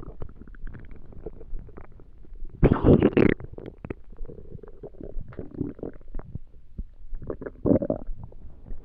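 Empty human stomach growling and gurgling from hunger: a loud growl about three seconds in and a shorter one near the end, with small pops and gurgles between.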